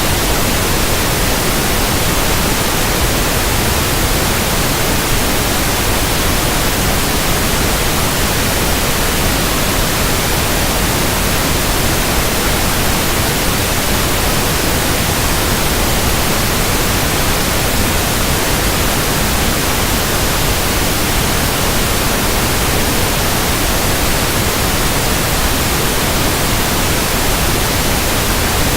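Pink noise test signal for speaker testing: a steady, unchanging hiss spread evenly from deep to high pitches.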